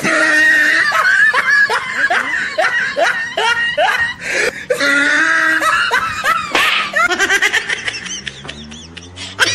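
Loud burst of laughter right after a punchline. It starts abruptly and goes on in quick, repeated peals for several seconds, then thins out near the end.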